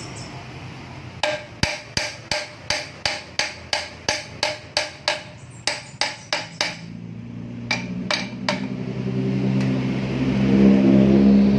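Hammer blows in quick succession, about four a second for some five seconds, then three more spaced strikes, during work on a noodle-making machine. A low hum grows louder near the end.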